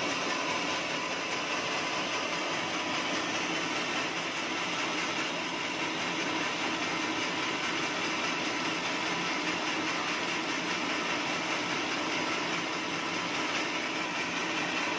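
Band sawmill running steadily, its drive and band blade turning with an even, unbroken machine noise.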